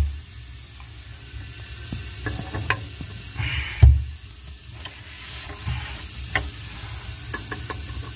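Scattered metal clicks and scrapes as a chrome cross handle is fitted back onto a Gerber shower stem valve and its screw is started, with a loud knock about four seconds in. A steady low hum runs underneath.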